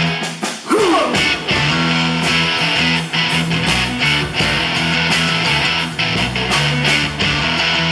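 Live rock band playing an instrumental stretch: electric guitar, bass and drums with cymbals. About half a second in, the low end briefly drops out and a note slides sharply down in pitch before the full band comes back in.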